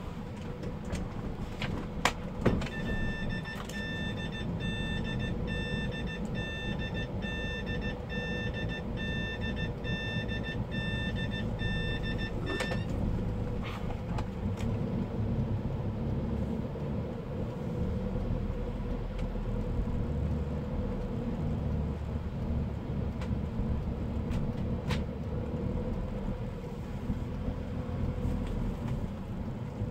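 Inside a car: two loud thumps about two seconds in, then the car's warning chime beeping about twice a second for some ten seconds, stopping with a click. After that the car drives on, its engine and tyres rumbling steadily.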